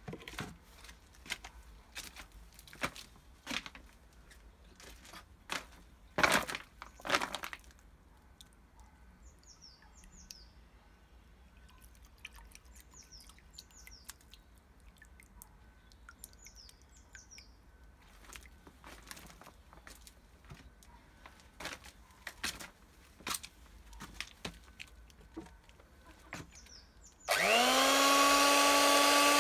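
An electric hand mixer switches on near the end and runs steadily, its motor whine rising to speed and then holding, with the beaters whisking in a tub of water. Before it, scattered clicks and knocks, and a bird chirping in short pairs of falling calls a few times.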